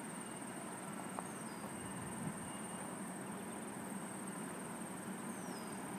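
Faint outdoor ambience: a steady, high-pitched insect trill, with two short falling bird whistles, one about a second in and one near the end, over a low background rumble.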